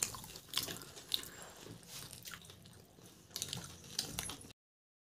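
A person chewing a bite of egg roll close to the microphone: soft, wet mouth clicks and smacks at irregular intervals. The sound cuts off abruptly near the end.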